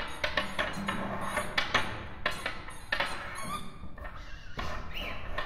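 Contemporary experimental music: irregular sharp knocks and clicks with short squeaks, from objects being struck and handled close to the microphone.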